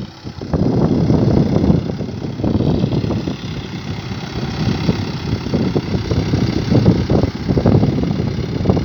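Swaraj 843 XM tractor's three-cylinder diesel engine running steadily while ploughing, with a brief dip in level just at the start.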